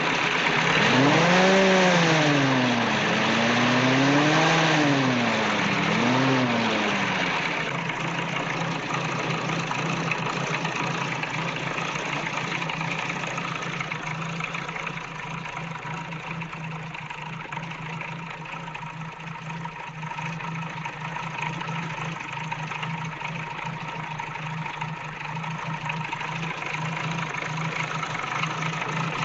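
Jeep engine, just started, revving up and down three times in the first few seconds, then settling into a long steady idle.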